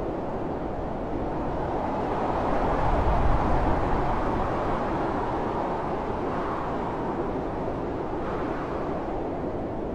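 Heavy blizzard wind blowing as a steady rush, swelling in a stronger gust with a low rumble about three seconds in, then easing.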